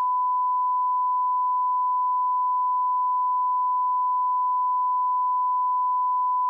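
Steady 1 kHz test tone, the reference tone that goes with colour bars, holding one unbroken pitch at constant level.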